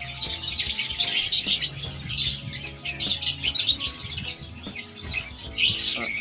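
Many small pet birds chirping rapidly and continuously, with music playing underneath.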